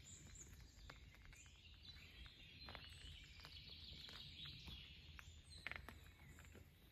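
Near silence: faint birds chirping, with a few soft ticks.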